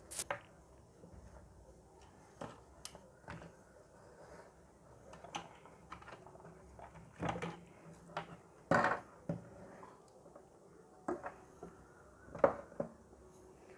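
Scattered clicks, knocks and light rattles of a fluorescent tube-light fitting and its wires being handled, about a dozen separate knocks with the loudest a little under two-thirds of the way through.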